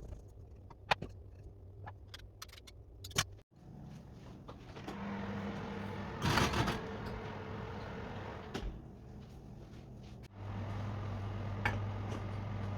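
Kitchen handling sounds: a few light clicks and taps, then a steady electrical hum from a running appliance, with a short loud rustle or scrape about six seconds in.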